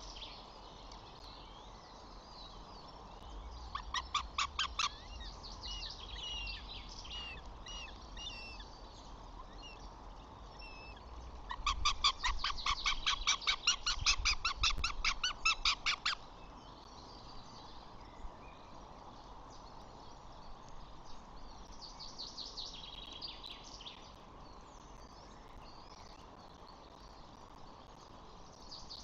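A bird gives rapid runs of sharp, evenly repeated calls, about eight a second: a short burst about four seconds in and a longer run of about four seconds near the middle. Faint high chirps continue throughout.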